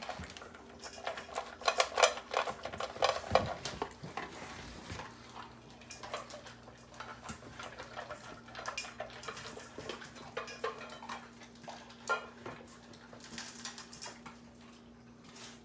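Dogs eating their lunch from bowls: irregular crunching and clinking of the bowls, busiest in the first few seconds, then sparser.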